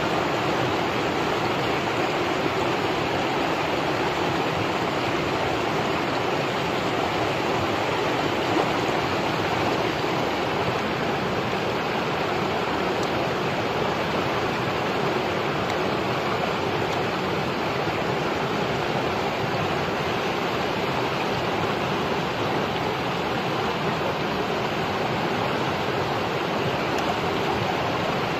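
Steady rush of a shallow stream's running water, an even noise that holds constant throughout.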